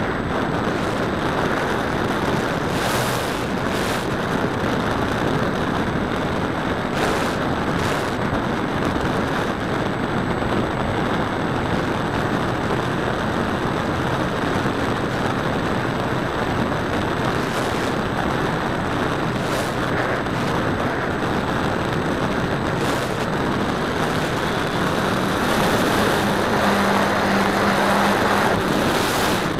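Radio-controlled model airplane in flight, heard from a camera mounted on the plane: a steady rush of propeller and wind noise with a few short crackles. It gets a little louder near the end, with a low hum showing through.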